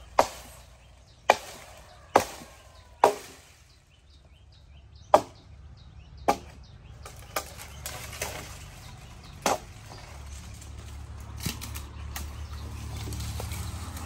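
Axe chopping into a dead jackfruit trunk: six sharp blows, the first four about a second apart, then lighter knocks spaced further apart. A low steady hum grows near the end.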